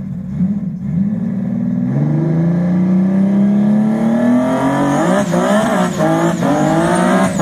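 Audi-engined dragster holding a steady engine note, then from about two seconds in revving with its pitch climbing steadily: the rear tyres spinning in a burnout at the start line.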